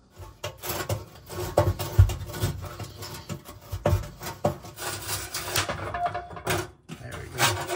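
Scraping, rubbing and clicking of metal parts and wiring as an oven's bake element is unscrewed and worked loose, with a sharp knock about two seconds in.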